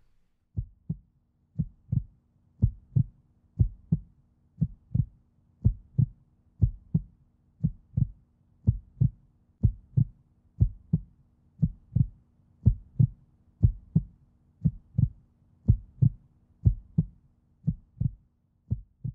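Heartbeat sound effect: low paired thumps in a lub-dub rhythm, about one pair a second, over a faint steady low hum.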